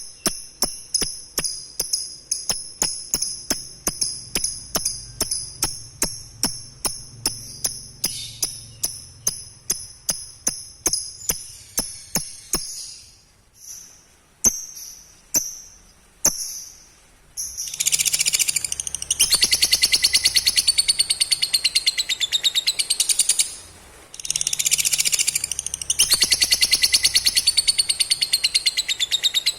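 Lovebird ngekek: a long, very rapid chattering trill, in two stretches of about six and five seconds in the second half. Before it come a run of sharp ticks, about two or three a second, under high ringing chirps, then a few short high calls.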